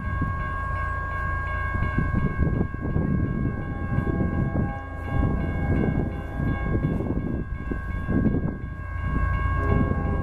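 Grade-crossing warning bell ringing steadily over a low rumble. From about four seconds in, the distant horn of the approaching CSX freight locomotive sounds in two long blasts.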